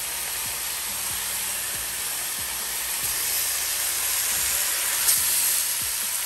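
Seasoned pork pieces sizzling as they brown in hot vegetable oil in a pot on high heat, a steady hiss. A brief louder burst of sizzle comes about five seconds in as more pieces go in.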